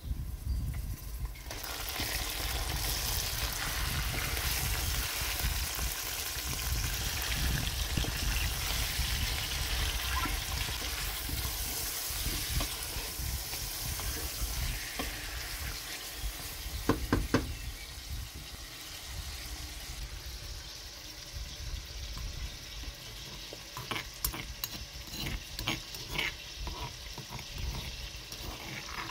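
Raw chicken pieces hitting hot oil and fried onions in a steel pot, setting off a loud sizzle that starts about a second and a half in and slowly fades as the meat is stirred with a wooden spatula. A few sharp knocks of the spatula against the pot come midway. Near the end, a spoon clicks and scrapes in a stone mortar.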